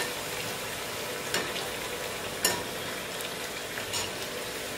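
Puris deep-frying in hot oil in a steel pan: a steady sizzle, with a few sharp taps of the wire-mesh skimmer as it presses the puris so they puff up.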